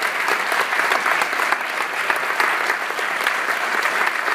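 An audience applauding steadily: many hands clapping at once, greeting an award recipient as she is called up to the front.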